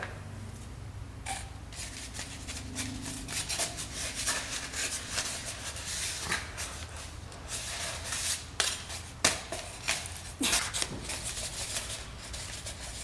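Rustling and frequent light clicks of a hand rummaging through the tokens in a lottery draw.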